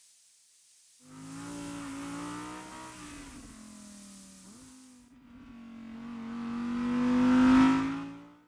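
Car engine running at a steady pitch in a chase sound design. It comes in about a second in, dips briefly near five seconds, then swells to its loudest near the end and drops away quickly.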